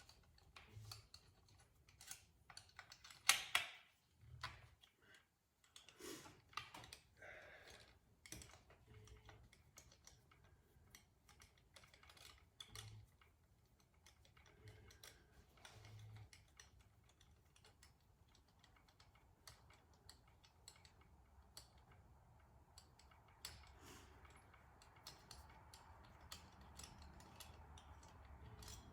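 Scattered light clicks and clinks of hand tools and small metal parts as a chainsaw's top end is taken apart, with one sharper click about three seconds in. A faint steady hiss comes in over the last few seconds.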